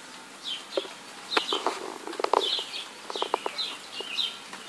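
Songbirds chirping: short calls that fall in pitch, repeating every half second or so. Scattered light clicks and knocks sound underneath.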